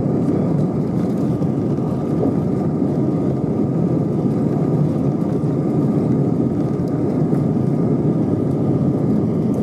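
Airbus A320 cabin noise during the takeoff roll: a steady, loud rushing rumble from the engines at takeoff power and the airliner speeding down the runway.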